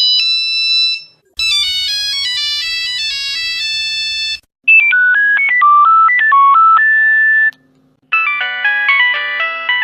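Nokia mobile phone ringtones played one after another, each a few seconds long with short gaps between. A brief chiming tail comes first, then a melody of many notes, then a single line of plain beeps, then a fuller version with several notes sounding at once.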